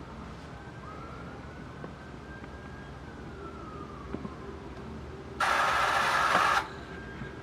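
Playback from a Pioneer CT-W840R cassette deck's right-hand transport: a single tone slowly sliding down, up and down again in pitch, like a siren, the sound of tape speed wavering as the deck struggles. About five seconds in, a loud burst of hiss-like noise lasts about a second.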